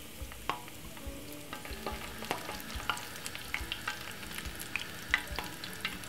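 Breaded salmon shallow-frying in hot oil in a frying pan: a steady sizzle with many small crackling pops from the oil, the pops coming thicker after about two seconds.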